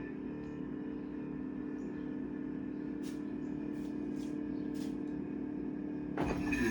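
Samsung RF267 refrigerator's freezer fan running with a steady humming grind and a few sharp ticks around the middle, with a sudden louder noise near the end. The grinding is the sign of ice built up around the fan because the freezer is not defrosting.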